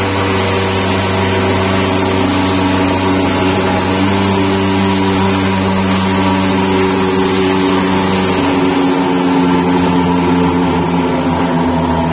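Disinfectant fogging machine running with a loud, steady engine-like drone and hiss, its pitch shifting slightly partway through. It is fogging a poultry shed to kill leftover virus.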